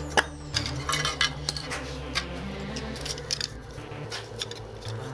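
Irregular clicks and clinks as a glass 3D-printer bed and hard plastic printed parts are handled and set down on a workbench.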